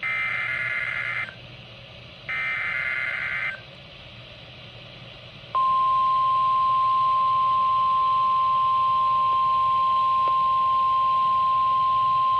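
Emergency Alert System SAME header: the last two of three one-second bursts of screeching digital data, about a second apart. About 5.5 s in, the NOAA Weather Radio single-pitch attention tone starts and holds steady, signalling that a new warning is about to be read.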